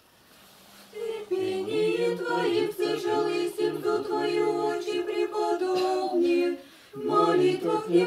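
Small group of voices singing an Orthodox troparion unaccompanied. One held note starts under a second in, the other voices join just after, and the singing breaks off briefly near the end before going on.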